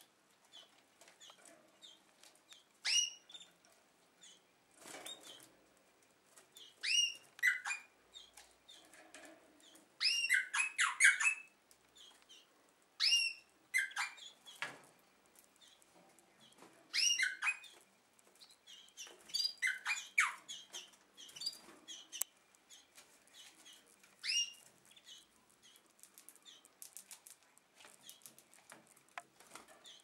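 Domestic canaries calling with short, falling chirps every few seconds, a quick burst of several together about ten seconds in, between soft wing flutters.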